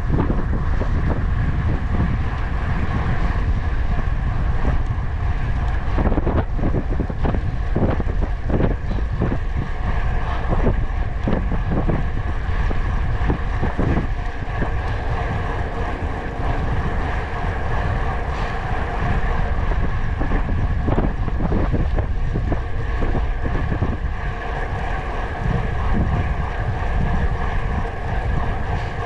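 Wind rushing and buffeting over the microphone on a moving vehicle, with a steady low rumble and drone from the vehicle underneath.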